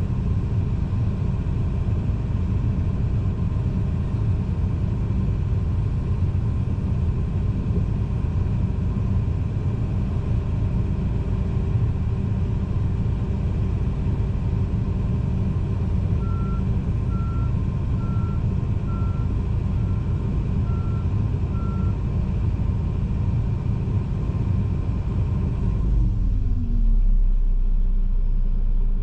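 John Deere 245G excavator's diesel engine running steadily, heard from inside the cab, with seven backup-alarm beeps about a second apart partway through. Near the end the engine speed falls with a downward glide in pitch.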